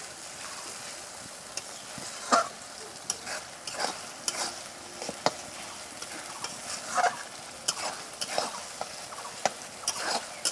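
Onions, garlic paste, ginger paste and green chilies sizzling in hot oil in a metal kadai, with a metal spatula stirring and scraping against the pan in irregular strokes.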